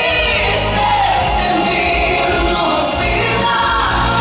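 A woman singing a Ukrainian pop song live over amplified band accompaniment, with a steady bass line and a regular cymbal beat.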